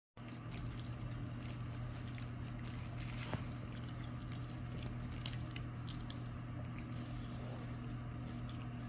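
Scattered small crunching and nibbling clicks of a snack being chewed, with two sharper ticks, over a steady low hum.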